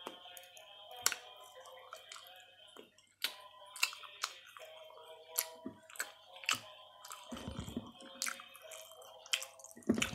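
Close-up eating sounds: chewing a toasted sandwich, with many sharp wet mouth clicks and a denser patch of chewing about seven seconds in.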